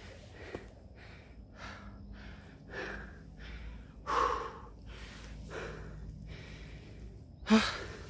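A person breathing heavily close to the microphone: about six loud breaths, one every second or so, the loudest about four seconds in and just before the end.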